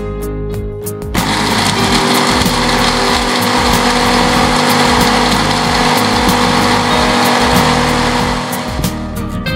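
Electric blender motor running with a small glass grinder jar, grinding whole spices (coriander, cumin, fennel, cardamom, cloves) to powder. It starts about a second in, runs steadily, and stops shortly before the end.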